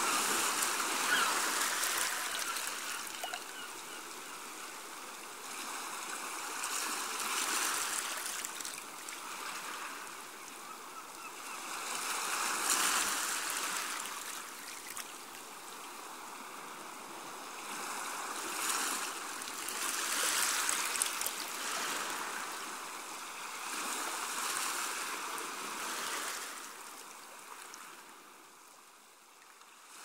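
Small waves washing onto a sandy beach, the surf swelling and ebbing every few seconds, fading away near the end.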